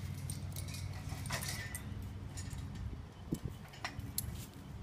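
Metal chain and snap hooks clinking and jangling as they are handled on a wire-mesh enclosure gate, in scattered clicks, over a steady low hum.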